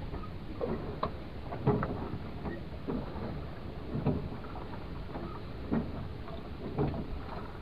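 Steady low wind and sea noise in an open fishing boat, with irregular light knocks and clicks from hands handling a caught fish and fishing line.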